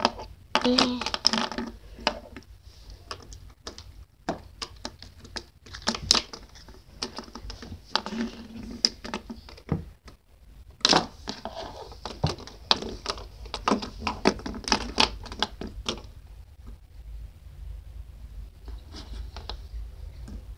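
Metal fidget spinners clicking and clacking against each other and on a wooden tabletop as they are stacked into a pile. The clicks come in irregular clusters and thin out for the last few seconds.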